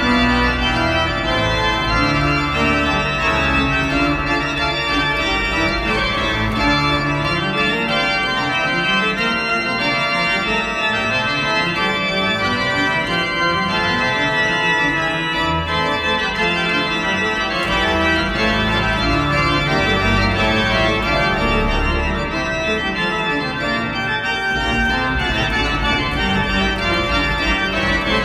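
Organ playing sustained chords with a moving bass line, as continuous music.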